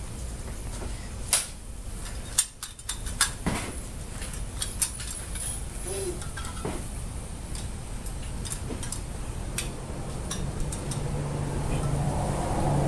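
Handling noises of camp gear on concrete: a string of sharp clicks and light clinks, most of them between one and five seconds in, as a plastic case and metal stove parts are picked up and set down. A low steady hum comes in near the end.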